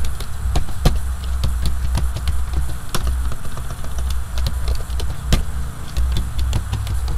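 Computer keyboard keys clicking at irregular intervals as a short word is typed and deleted, over a steady low hum.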